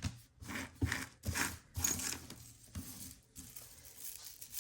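Pieces of costume jewelry clicking and clattering as a hand sorts through a pile: sharp clicks about every half second for the first two seconds, then lighter, scattered rattling.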